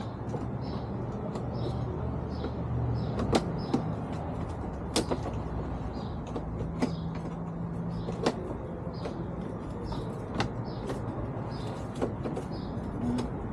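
Sharp plastic clicks and knocks, a few seconds apart, as a fairing light is pushed and snapped back into a Can-Am Spyder's fairing, over a steady low hum. A faint high chirp repeats about twice a second throughout.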